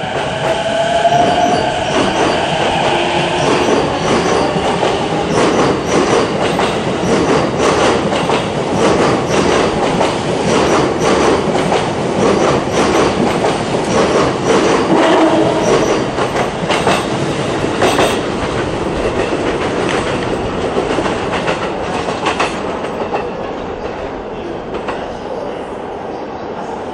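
JR East E233 series electric train pulling out of the station: the traction motors' whine rises in pitch as it accelerates, then the wheels click over rail joints in a long regular run of clicks, with a brief squeal about halfway through. The sound fades as the last cars pass.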